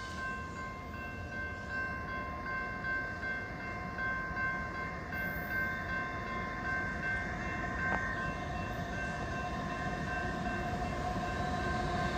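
A freight train approaching, its rumble growing steadily louder, with steady high-pitched ringing tones over it that fade out near the end.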